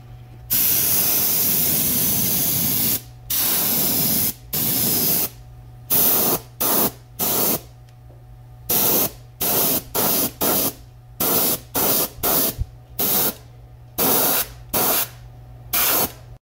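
Airbrush spraying iridescent yellow paint onto a wooden lure in a light dusting coat. One long hiss of about two and a half seconds comes first, then many short bursts as the trigger is pressed and released. A steady low hum runs underneath.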